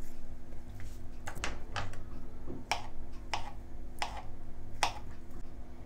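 Paring knife slicing through a banana and tapping a plastic cutting board: a sharp click with each cut, about eight in all, starting about a second and a half in and coming under a second apart.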